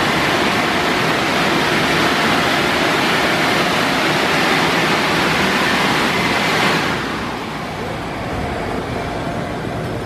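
Rollover car wash's dryer blowers running with a loud, steady rush of air. About seven seconds in the rush drops sharply, leaving a quieter, duller machine running sound from the gantry.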